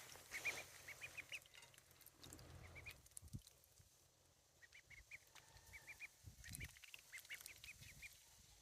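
Ducks giving short, high peeping calls in quick runs, faint.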